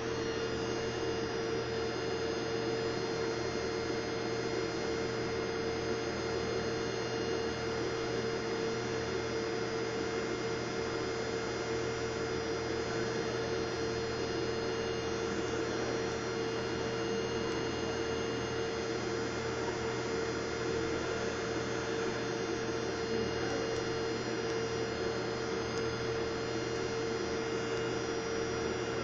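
A steady hum: one strong constant tone over an even hiss, with fainter steady tones above it.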